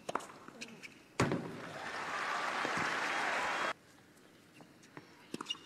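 Tennis ball struck with a racket, then a second sharp hit about a second later, followed by a stadium crowd applauding for about two and a half seconds. The applause cuts off abruptly, and a few faint taps follow near the end.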